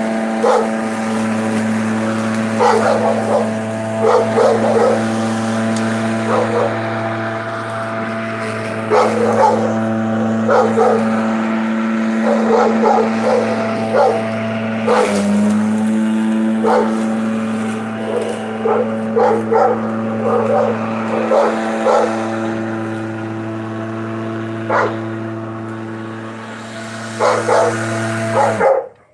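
Ryobi cordless electric lawn mower running with a steady hum while mowing grass, as a dog barks repeatedly in short bursts over it. All sound cuts off suddenly near the end.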